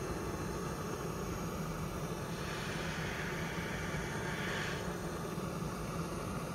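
Handheld gas blow torch burning with a steady hiss of its jet flame, aimed at a charred pomegranate; the hiss turns brighter for a second or two mid-way.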